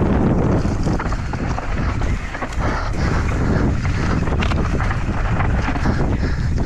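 Wind buffeting a helmet-mounted camera's microphone as a mountain bike descends a rough dirt singletrack, with tyre noise and the bike clattering over ruts and rocks in many short knocks.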